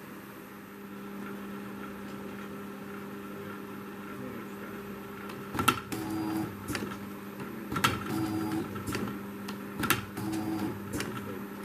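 Germark automatic wraparound labelling machine running with a steady hum. From about halfway there are three labelling cycles about two seconds apart, each a sharp click followed by a short whine as a self-adhesive label is wrapped around a mastic tube.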